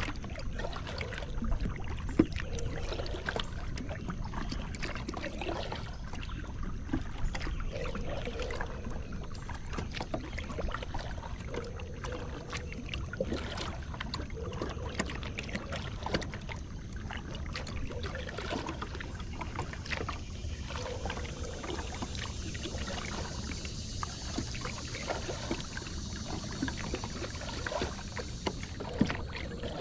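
A kayak being paddled across calm water: repeated paddle strokes with water splashing and dripping off the blades, and a steady low rumble underneath.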